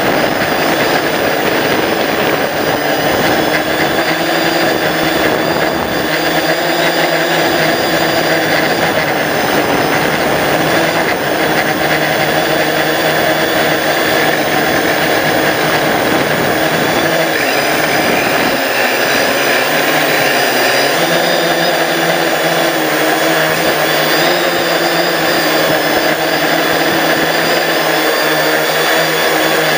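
A drone's electric motors and propellers whining steadily, heard close up from its onboard camera. Several tones run together and drift in pitch now and then as the motor speed changes, with a brief dip a little past halfway.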